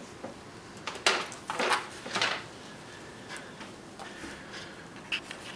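A folded paper helicopter handled and dropped onto a tabletop: a few short crinkling rustles and light taps about one to two seconds in, then only faint ticks.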